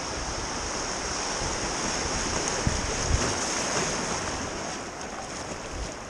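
Whitewater of a river rapid rushing and hissing around a kayak, easing off near the end as the boat passes into calmer water. A couple of short low thumps about three seconds in.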